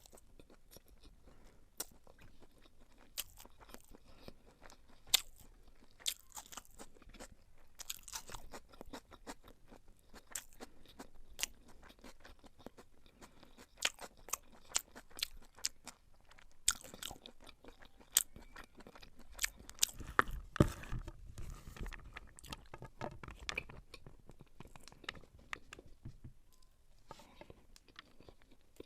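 Close-up eating sounds of beef pilau: wet chewing with sharp clicks and smacks, a denser run of chewing in the second half.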